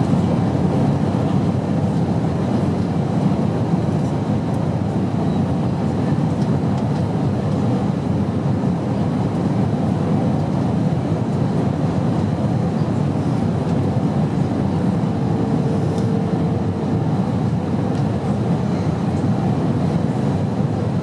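Airliner cabin noise in flight: a steady, deep, even rush of engine and airflow noise. A faint steady tone sounds through it for about two seconds, about fifteen seconds in.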